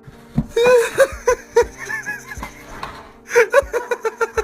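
A person laughing in two bouts of quick, pulsing laughs, the second bout near the end.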